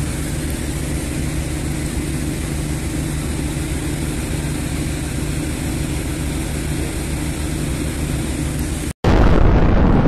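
A steady low mechanical drone with hiss, like an engine running nearby, holding even for about nine seconds. It cuts off suddenly and a louder deep booming rumble starts near the end.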